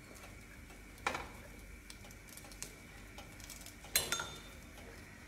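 A slotted metal spatula knocks against a square griddle pan while pancakes are being turned: one sharp clack about a second in and a louder one near four seconds with a brief metallic ring. A few light taps come in between.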